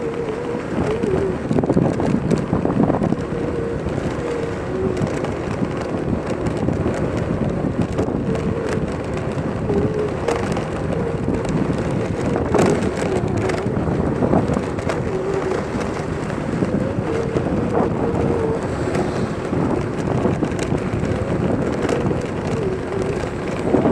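Road noise from a vehicle rolling along a paved street, with wind buffeting the microphone. A faint hum comes and goes underneath, and there are a few short knocks.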